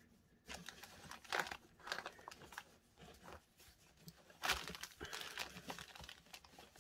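Cross-stitch fabric being slowly unrolled and handled, a crinkly rustling in irregular bursts, loudest about four and a half seconds in.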